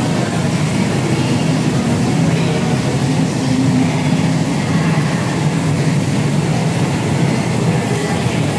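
Steady low drone of the extraction fan drawing air through the duct above a tabletop grill, running without change.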